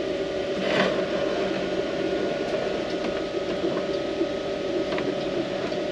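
Steady mechanical hum with two even tones, with a brief rustle about a second in and a few faint clicks of hard 3D-printed plastic parts being handled.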